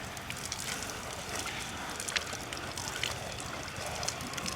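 Water running and spattering from an outdoor rinse shower, a steady hiss with scattered small splashes and clicks.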